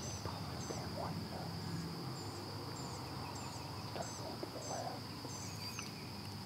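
Outdoor field ambience: a steady high insect drone, with short high chirps repeating about once or twice a second.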